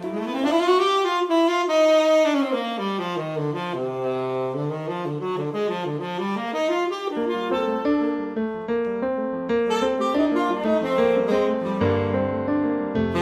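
Saxophone and keyboard playing contemporary jazz as a duo. The saxophone carries a melody that rises and then falls over the first few seconds, and the keyboard comes in with fuller low notes about seven seconds in.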